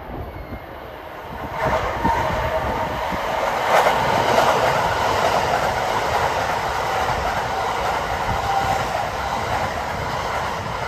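Kintetsu 80000 series Hinotori electric limited express train passing alongside the platform. Its rumble rises sharply about a second and a half in to a loud, steady rush of wheels on rail, with clicks over the rail joints, and begins to fade near the end.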